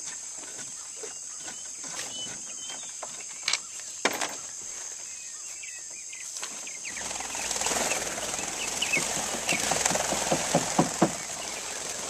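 Steady high-pitched insect chorus. Two sharp knocks come about three and a half and four seconds in, and from about seven seconds a louder rustling with quick taps joins it.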